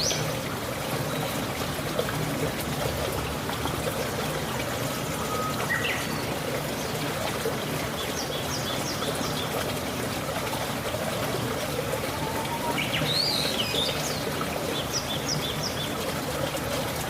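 Water trickling steadily, with a few short bird chirps now and then over it.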